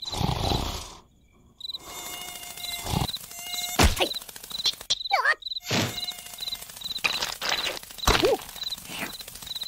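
Crickets chirping in a steady, evenly spaced rhythm as a night ambience, with cartoon sound effects over it: quick gliding squeaks and whooshes and a few sharp knocks.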